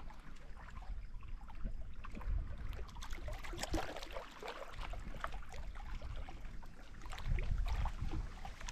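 Wind buffeting the microphone in gusts, strongest near the end, over small waves lapping and splashing at a stony lake shore.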